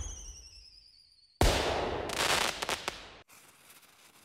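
Fireworks sound effect. A wavering whistle falls slowly in pitch, then a loud bang about a second and a half in is followed by crackling for nearly two seconds, cut off suddenly.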